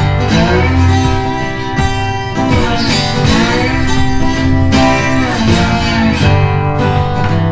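Background music led by strummed guitar, playing without a break.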